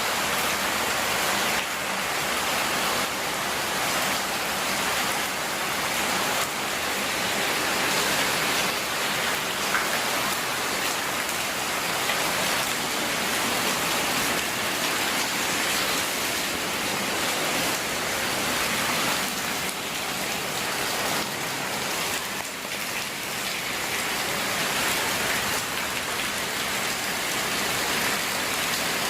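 Heavy rain falling steadily, an even hiss that swells and eases slightly.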